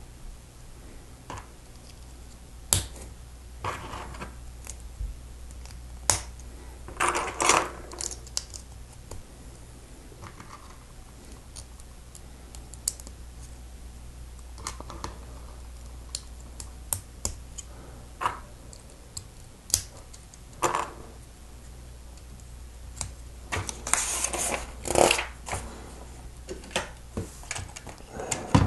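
Plastic Lego bricks being handled and pressed together by hand: scattered sharp clicks and snaps, with a few short clusters of rattling, the busiest near the end. A steady low hum runs underneath.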